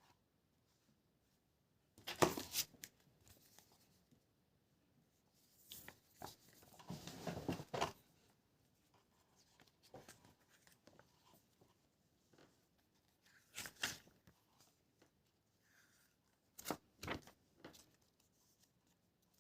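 Packaging being handled and unwrapped: scattered rustles and tearing sounds, with a longer rustle about six to eight seconds in and a few short ones later.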